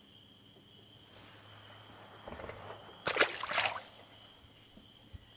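Walleye dropped back into the lake: a short splash about three seconds in, just after a softer rustle of water. A steady high chirring of crickets runs underneath.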